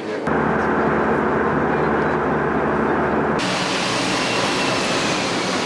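Airbus A350 jet engine noise: a loud, steady, muffled rush with a low hum. About three and a half seconds in it cuts to a brighter, hissing jet noise with a faint, slowly falling whine.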